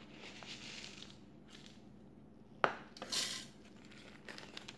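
Old-fashioned rolled oats poured into a clear plastic blender jar: a soft rushing hiss of flakes sliding in, then a single sharp knock on the jar a little past halfway and a short rattle of the last oats going in, with a few small clicks near the end.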